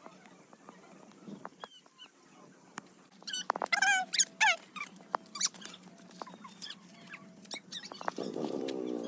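Dog yelping: a quick run of short, high calls, each falling in pitch, a few seconds in. A steady pitched drone starts near the end.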